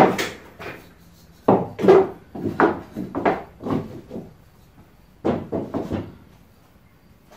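Wooden pieces knocking and clattering as they are handled: a sharp knock at the start, then two runs of clattering knocks, the second a little after five seconds in.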